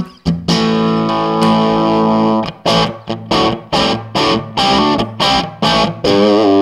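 Electric guitar played through a Marshall Lead 12 solid-state amp with the gain set at 5, giving an overdriven tone. One chord rings for about two seconds, then a run of short, rhythmic chord stabs follows.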